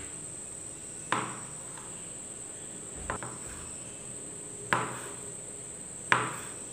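Kitchen knife cutting through a rolled dough log and knocking on a wooden cutting board: four sharp chops spaced a second or two apart, the second one lighter.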